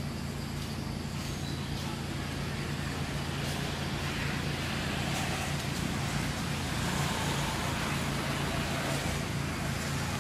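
Steady vehicle-like noise: a constant low engine hum under a traffic hiss that swells about four seconds in.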